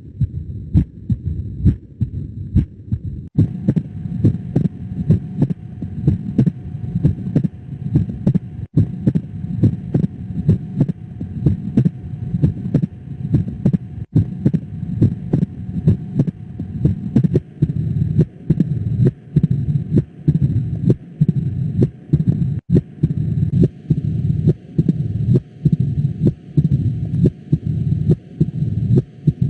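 Recorded heart sounds as heard through a stethoscope: a regular series of low heartbeats, a little faster than one a second. A faint steady hum joins a few seconds in.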